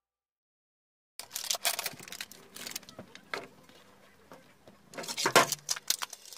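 Metal kitchenware clinking and clattering, a utensil knocking against a cooking pot, after about a second of silence, with a louder cluster of knocks about five seconds in.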